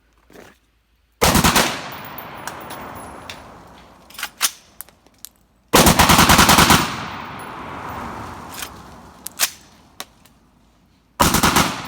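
Rifle with a binary trigger fired rapidly: three fast bursts of shots, each under about a second, with a few single sharp cracks between them.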